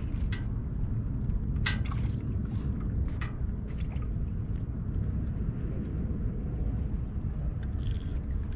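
Low, buffeting rumble of wind on the microphone on an open pier. A few short sharp clicks sound in the first few seconds, about a second and a half apart.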